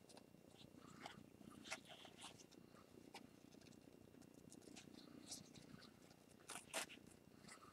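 Near silence: faint rustles and soft clicks of ribbon and paper being handled as a bow is tied, with a couple of sharper clicks near the end, over a low steady hum.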